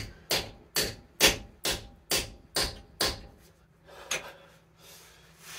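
Hand hammer blows on a steel chisel driven between a 2012 Subaru Outback's corroded, seized rear wheel bearing hub and its knuckle, a sharp metal-on-metal strike about twice a second. The hub is starting to move. After about seven blows there is a pause and one lighter strike.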